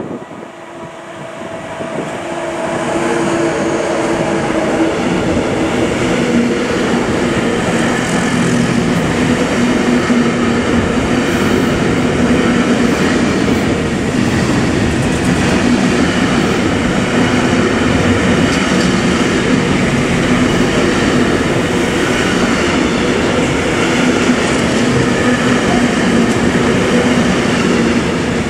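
Long intermodal freight train hauled by an electric locomotive passing close by: the sound rises over the first three seconds as the train arrives, then the container and tank-container wagons rumble past at a steady level, with clatter of wheels over the rail joints.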